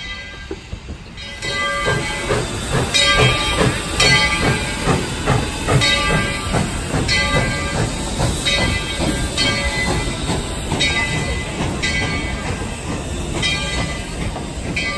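Narrow-gauge steam locomotive working, with hissing steam and a rapid run of exhaust beats that swells in about a second in. A ringing tone recurs about once a second over it.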